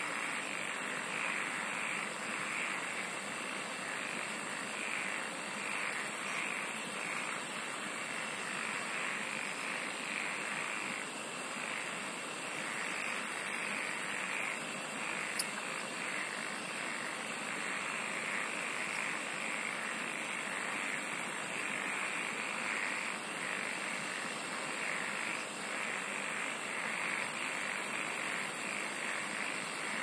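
Dense, steady chorus of calling insects, with a high, rapidly pulsing trill of about two seconds that comes back roughly every seven seconds.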